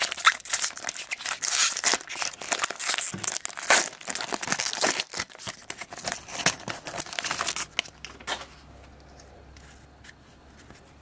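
Foil wrapper of a trading-card pack torn open and crinkled by hand, a dense run of crackling rustles that dies down to quiet handling about eight seconds in.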